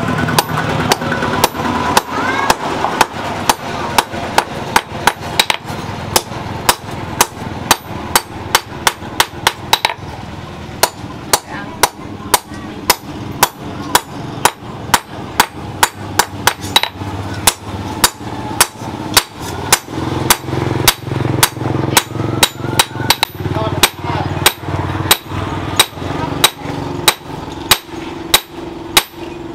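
Hand hammer striking a hot steel sword blade, cut from a motorcycle disc brake rotor, on a steel post anvil: an even run of sharp metal-on-metal blows, about two a second, as the blade is forged to shape.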